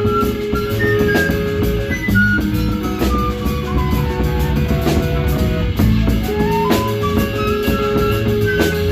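A live band playing improvised music, with regular percussion strikes and held bass notes under a high melody. The melody slides down through the middle of the passage and climbs back up near the end.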